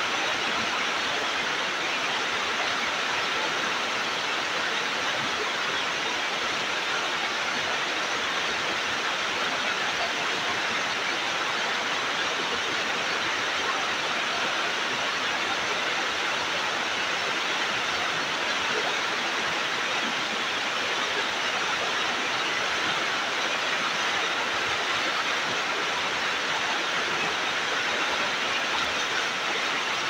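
Mountain waterfall: water falling and splashing in a steady, unbroken rush, with more hiss than rumble.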